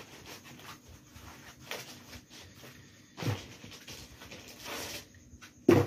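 Foam packing around a laptop being handled and pulled away: soft rubbing and scraping, with a knock about three seconds in and a sharper, louder knock near the end.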